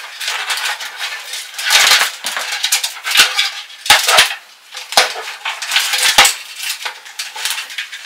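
Cables and hardware being handled inside a computer case: a busy run of clicks, knocks and rattles, with several sharper knocks spread through.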